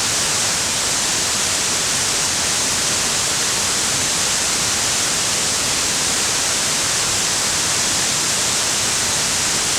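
Waterfall, a steady rush of falling water without a break, loudest in its hissing upper range.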